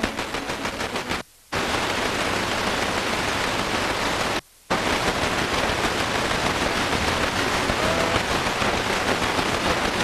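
Static hiss from a Sony XDR-F1HD FM tuner set to a frequency with no station received, pulsing fast in the first second. It cuts out briefly twice, about a second in and again about four and a half seconds in, as the tuner mutes while stepping to the next frequency.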